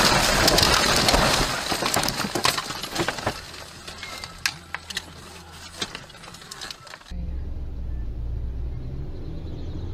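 Car collision heard from inside the camera car: a loud crash noise of crunching and scraping that dies down over the first couple of seconds. Scattered sharp cracks and clicks follow as the car comes to rest in bushes. About seven seconds in there is an abrupt cut to the steady low hum of a car driving.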